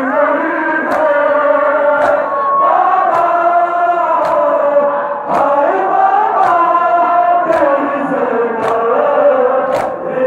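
Crowd of men chanting a nauha, a Shia mourning lament, in unison, with the sharp slaps of chest-beating (matam) landing together about once a second.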